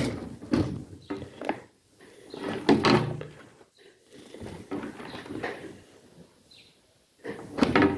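A wire grill rack rigged as the lid of a homemade snap trap, clattering and knocking against a wooden desk and board as it is pushed down and lifted back up. It makes a series of metallic knocks and rattles, loudest about three seconds in and again near the end.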